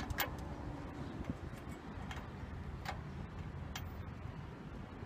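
A few sparse, light metallic clicks of hand tools on the car's starter motor terminal nut, over a low steady background noise.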